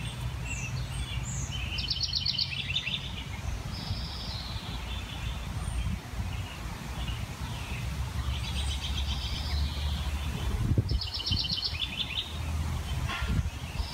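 Small songbirds chirping and singing, with a rapid trilled phrase about two seconds in and again near eleven seconds, over a steady low outdoor rumble.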